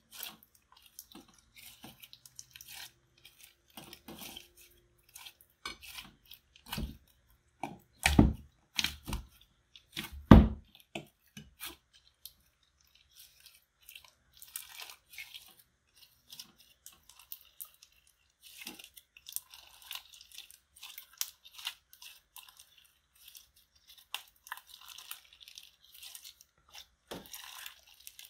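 Thick white slime being kneaded, squeezed and stretched by hand, making a constant run of sticky crackles and little pops. A few louder, deeper squishes come between about six and ten seconds in, and one more near the end.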